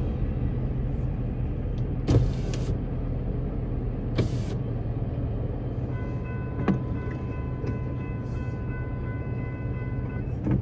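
Steady low rumble with two short bursts of hiss about two and four seconds in. From about six seconds a steady whine of several tones runs for about four seconds and stops as the railroad crossing gate arms rise.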